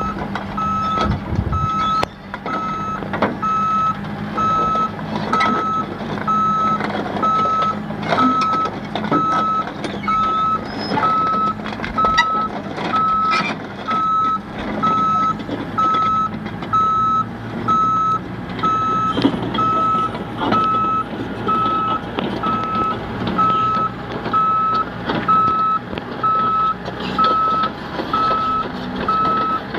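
A heavy-equipment backup alarm beeping steadily, about one beep a second, over a diesel engine running, with occasional clanks.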